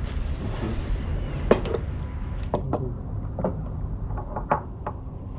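A handful of light clinks and knocks from about a second and a half in until near the end, over a steady low rumble.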